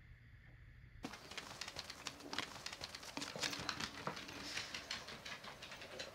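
Paws and claws of two small dogs (Japanese Chin) clicking and pattering on the floor as they trot, many quick irregular taps starting about a second in.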